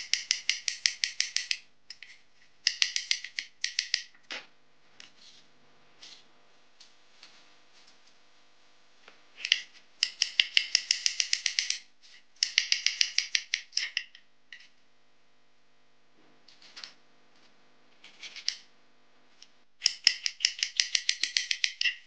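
Chef's knife slicing bell peppers into thin strips on a wooden cutting board: quick runs of crisp cuts, each blade stroke tapping the board, with short pauses between runs.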